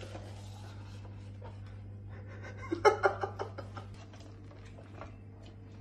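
A glass jar handled on a kitchen counter, with pieces of raw meat pushed into it: a cluster of soft knocks and clicks about three seconds in, over a steady low hum.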